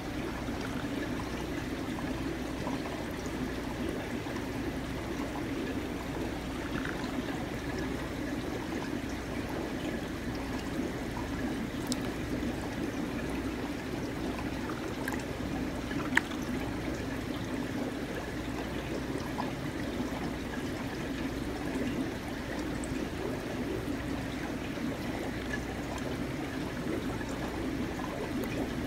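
Steady trickling of running water, with a single sharp tap about halfway through.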